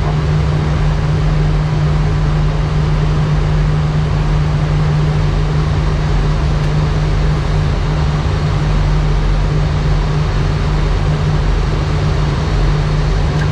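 Steady flight-deck noise of an Airbus A319 in descent with its engines at idle thrust: a constant rush of air with a steady low hum beneath it.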